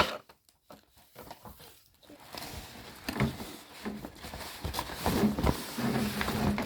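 A sharp click, then rustling and light knocks from items being handled and rummaged through, growing busier about two seconds in.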